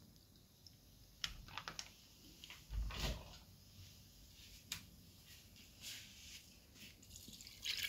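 Faint handling noises of kitchen containers being moved: a few light clicks and taps, and a dull thump about three seconds in.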